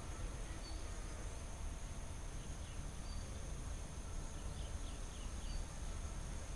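Outdoor ambience: a steady high insect buzz, with a short high chirp every two seconds or so and a few faint chirps about halfway through, over a low rumble.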